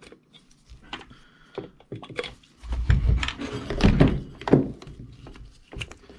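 The plastic housing of a dismantled Husqvarna 350 chainsaw being handled and shifted on a workbench. Scattered light clicks and taps, with a run of heavier thunks and knocks in the middle.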